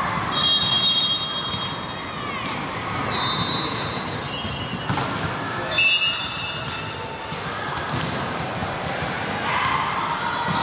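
Volleyball game in a large hall: the ball is struck a couple of times near the middle, among players' shouts and background chatter, with several shrill high tones each about a second long.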